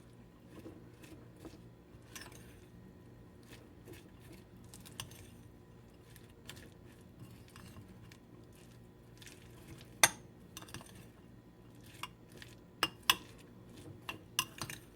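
A spoon stirring and scraping through coleslaw and mayonnaise in a bowl: soft and faint at first, then sharp clinks against the dish from about ten seconds in, coming more often near the end.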